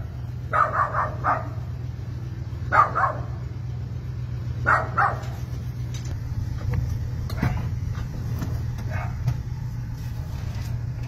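A small dog barking over the steady low hum of an idling car engine: a quick run of barks about half a second in, single barks near three and five seconds, then fainter barks later.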